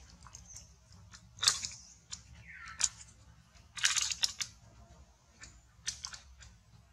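Irregular crackles and snaps of dry leaf litter, with the loudest snap about a second and a half in and a quick cluster around four seconds.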